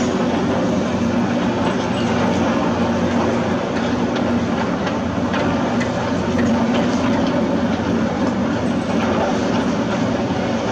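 Heavy construction machinery engine running steadily, with scattered light clanks and knocks over it.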